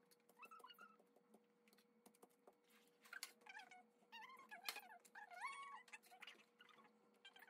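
Near silence: faint, high-pitched voices in the background, strongest in the middle, with a few soft taps and a low steady hum.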